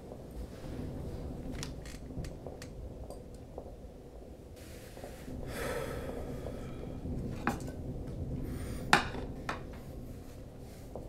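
A plate being moved on a coffee table: rustling and a few small clicks and knocks over a steady room hum, the loudest a sharp knock about nine seconds in.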